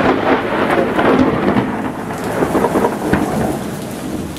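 Thunder from a lightning strike, rumbling and crackling over falling rain, slowly dying away, with one sharp crack about three seconds in.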